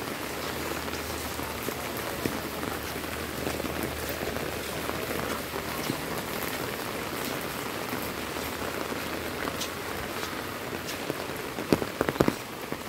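Heavy rain falling steadily on a wet paved lane and leafy plants, an even hiss. A little before the end comes a handful of sharp taps.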